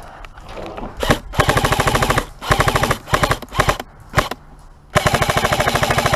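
M4-style airsoft rifle firing rapid full-auto bursts: several short strings of fast shots with brief pauses between, and a longer burst near the end.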